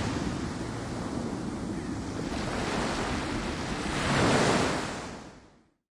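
Rough sea: waves surging with wind, one wave swelling loudest about four seconds in, then the sound fades out.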